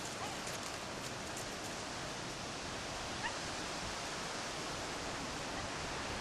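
Steady, even outdoor background hiss with no distinct events, only a faint brief sound about three seconds in.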